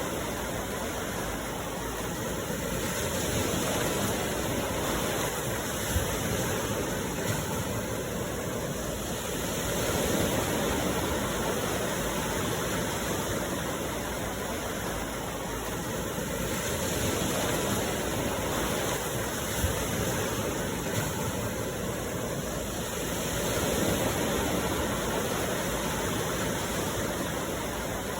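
Sea waves washing onto the shore: a steady rush of surf that swells and eases about every six or seven seconds.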